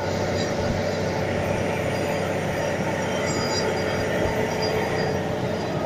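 A Volvo Penta TAD1343VE turbo diesel engine driving a 1200 CFM, 330 PSI air compressor, running steadily and loudly with a constant low hum and a steady higher tone.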